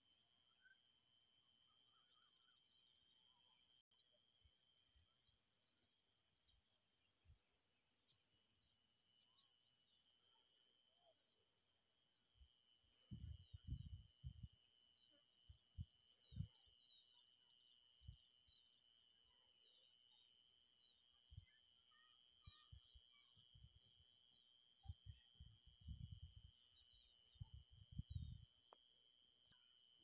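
Faint evening insect chorus: several steady high-pitched buzzes, one of them a fast pulsing trill, with scattered bird chirps over it. Low bumps on the microphone come in clusters about halfway through and again near the end.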